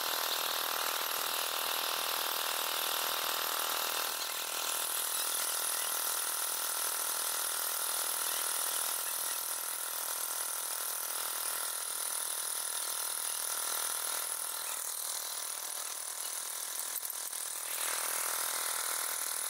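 Small diesel engine driving the water pump for jet-drilling the well, running steadily. It is heard thin and hissy, with little of its low end.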